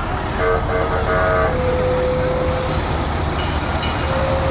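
Emergency vehicles going past with engines rumbling and steady horn blasts: a two-note horn chord about half a second in, then a longer single-note horn, and a short one near the end.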